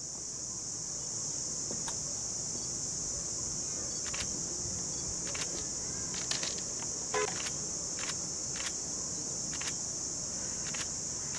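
Steady high-pitched drone of insects, with a few faint, sharp clicks scattered irregularly through it.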